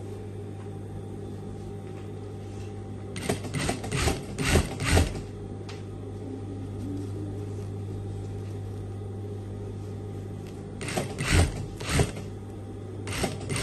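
Industrial lockstitch sewing machine with its motor humming steadily. There are two short spells of clicking and knocking from the machine as it is worked, a few seconds in and again near the end.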